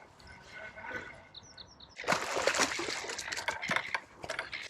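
Water splashing and sloshing, starting suddenly about two seconds in and lasting about two seconds.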